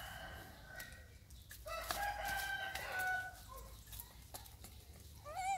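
Animal calls: a long held call about two seconds in and a short wavering call near the end, with scattered light clicks.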